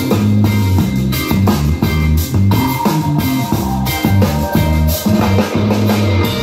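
Rock music with a heavy, stepping bass line and a steady drum beat, played loud through a Sony mini hi-fi system's two-way bookshelf speakers.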